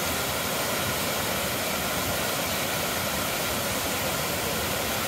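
Kravica waterfalls, white water pouring over tufa cliffs, making a steady, unbroken rush.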